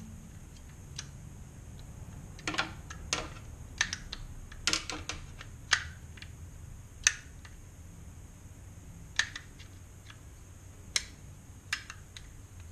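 Audi S4 B5 door lock mechanism clicking as its latch is pulled down and released by hand, about a dozen irregular sharp clicks. The latch is being worked to simulate the door closing and opening, to test its door switch for the intermittent footwell light fault.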